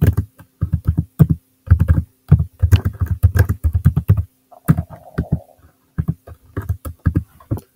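Typing on a computer keyboard: rapid keystrokes in bursts with short pauses between them.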